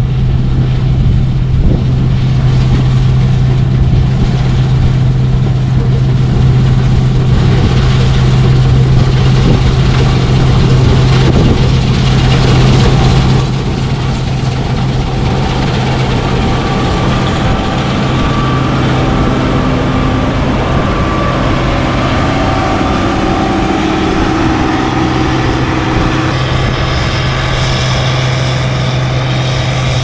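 Heavy diesel farm machinery running steadily at constant engine speed, a deep even hum throughout. The sound gets a little quieter about thirteen seconds in, and faint higher steady whines come and go in the second half.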